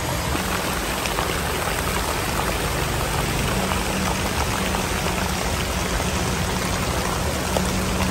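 Water spraying and splashing steadily onto the ground in a water play area, an even rush of splashes.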